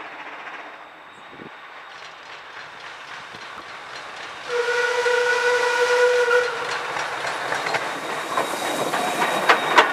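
Queensland Railways C17 class steam locomotive approaching with its train. About four and a half seconds in it gives one steam whistle blast lasting about two seconds. After the blast the noise of the engine and the train on the rails grows louder as it nears, with sharp clicks near the end.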